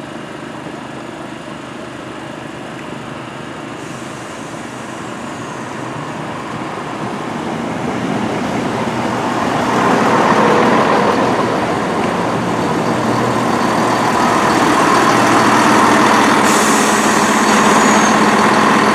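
Class 170 Turbostar diesel multiple unit arriving at the platform, its underfloor diesel engines and running gear growing steadily louder as it draws in. The train is loudest from about halfway through, running close by.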